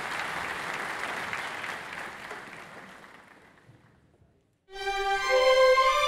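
Audience applause dying away over about four seconds, then a brief silence. About five seconds in, a violin starts playing long held notes that step upward.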